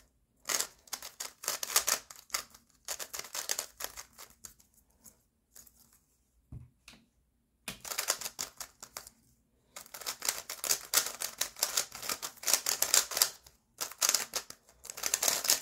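Rapid clicking and clacking of a WR M 2021 Maglev 3x3 speedcube being turned at speed, not yet lubricated. Two long runs of fast turns, split a little past the middle by a few seconds' pause with a single low thump.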